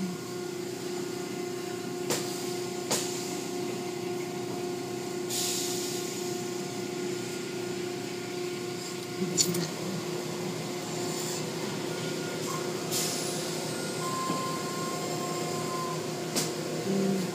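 Automatic tunnel car wash in operation: a steady machine hum with surges of water spray, and a few sharp knocks.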